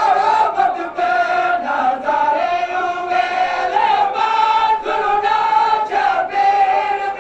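Crowd of men's voices chanting a Saraiki noha (Shia mourning lament) in unison, on long held notes that break and start again every second or so.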